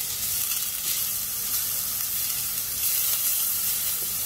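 Hot rapeseed oil sizzling steadily in a stainless steel pan, heated for tempering spices.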